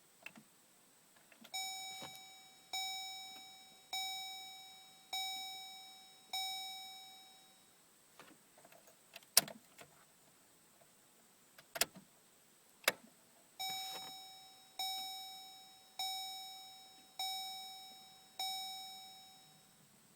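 Chevy Colorado's dashboard warning chime sounding in two runs of five evenly spaced, fading dings about a second apart, with a few sharp clicks between the two runs while the truck still won't start.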